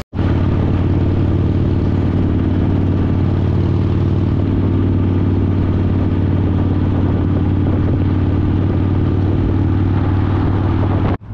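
Harley-Davidson Fat Boy's V-twin engine, heard from the rider's seat while cruising at a steady speed. It makes a loud, low, even drone that holds one pitch throughout, with no revving.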